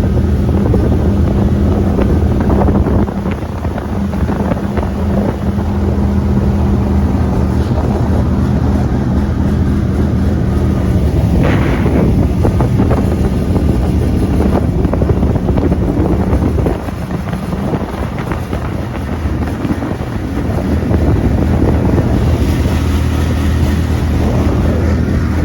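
Gator-Tail surface-drive mud motor running steadily as the boat moves through shallow water, with wind on the microphone. The engine sound dips briefly about three seconds in and again for a few seconds just past the middle.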